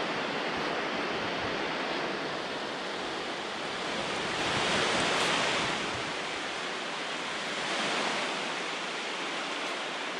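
Surf washing onto a flat sandy beach: a continuous hiss of breaking waves that swells louder about halfway through and again a little later.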